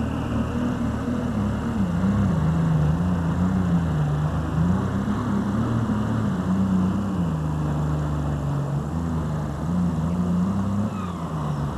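Case IH super stock diesel pulling tractor's turbocharged engine running flat out under load as it pulls the sled, its pitch rising and falling as the revs change.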